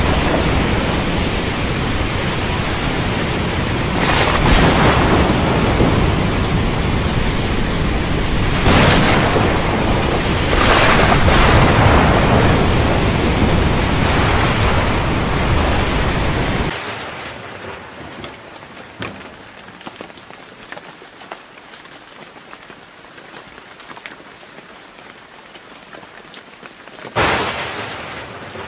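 Thunderstorm with heavy rain: a dense wash of rain with thunder swelling about three times. About 17 seconds in it cuts abruptly to lighter, pattering rain, and a sharp thunderclap comes near the end.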